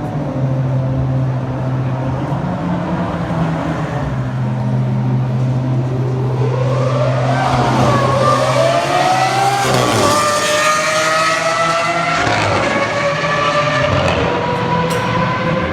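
Supercar engine accelerating hard through the gears: its pitch climbs and drops back at each of several upshifts. Another engine drones steadily underneath for the first ten seconds or so.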